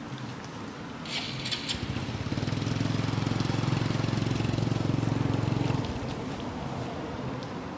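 A low, steady motor drone starts about two seconds in, holds at one pitch and cuts off abruptly near six seconds. A brief hiss about a second in.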